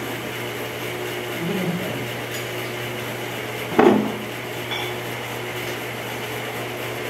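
Tableware clatter: one sharp knock with a brief ring about four seconds in, over a steady low hum.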